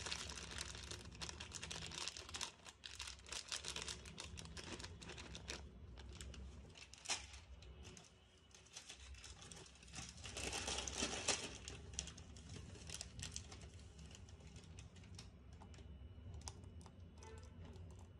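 Plastic pouches of almonds and raisins crinkling, with light clicks and taps as the nuts are picked out and dropped into a steel blender jar of milk. The crinkling is louder for a moment about ten seconds in.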